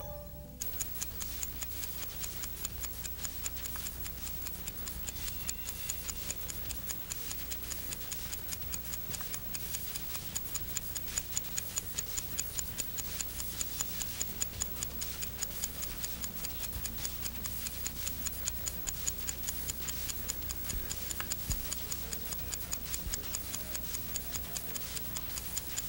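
Clock ticking with a fast, very even beat over a steady low mains hum.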